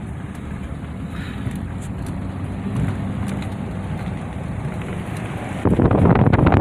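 Car driving, a steady low rumble of road and engine noise. About five and a half seconds in, a sudden louder rush of wind buffets the microphone.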